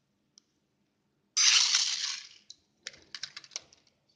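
Toy helicopter with its rotor spinning close to the microphone: a sudden rush of air noise about a second and a half in that fades over a second, then a quick run of clicks and ticks.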